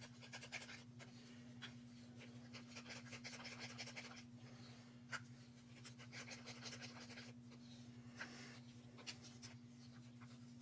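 Wooden craft stick stirring thick acrylic paint in a small plastic cup: faint scraping and rubbing, with a few light taps of the stick against the cup.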